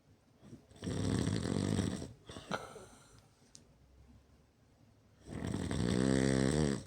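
A person snoring loudly: two long snores, each lasting a little over a second, about four and a half seconds apart.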